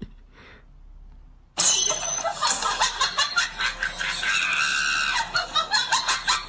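Loud screaming, starting suddenly about one and a half seconds in after a faint opening.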